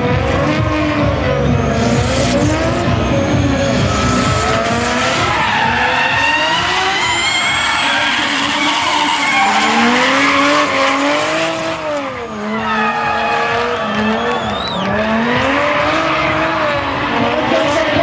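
Two drift cars, a Nissan R33 Skyline and an RB25-engined Nissan S13, drifting in tandem: both engines rev up and down with the throttle while the tyres squeal and scrub without a break. The sound dips briefly about twelve seconds in.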